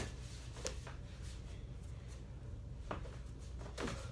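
A few scattered knocks of a small basketball bouncing and sneakers on the floor, over a steady low hum.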